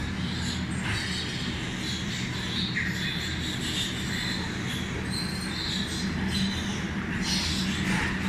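Farrowing-barn din: a steady low hum, typical of a barn's ventilation, with short high squeaks and squeals from piglets scattered throughout.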